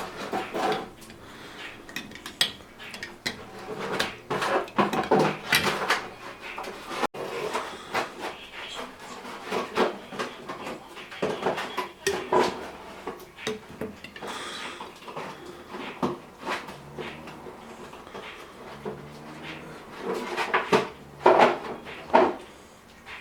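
Irregular clinking and knocking of dishes, pots and metal utensils during food preparation, with a few louder clatters near the start and near the end.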